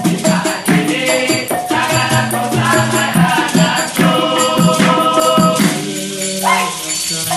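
Dikir barat group singing, with the seated chorus clapping in unison and a maraca shaken to the beat. After about five and a half seconds the clapping thins out and the voices hold longer notes.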